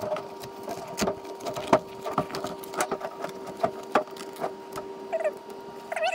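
Old glued-down marine carpet being peeled off a boat hatch panel: irregular crackling and tearing with short squeaks as the adhesive lets go, over a steady low hum.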